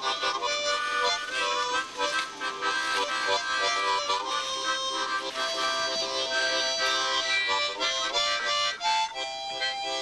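Background music led by a harmonica, several notes sounding together and changing every second or so.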